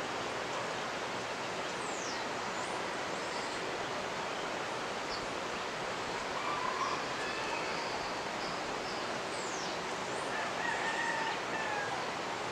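Steady rush of a mountain river, with birds chirping in short high falling notes and a faint rooster crowing around the middle and again near the end.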